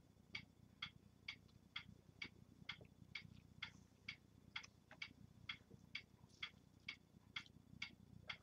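Faint, steady ticking of a clock, about two ticks a second, over a low room hum.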